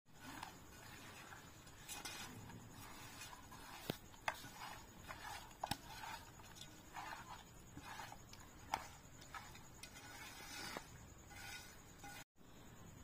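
A hand mixing raw fish pieces with spice powder and chopped coriander in a metal bowl, coating the fish in marinade: irregular soft squishing and rustling with a few sharp clicks against the bowl.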